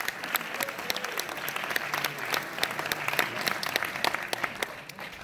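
Audience applauding: a dense patter of many hand claps that thins out and fades near the end.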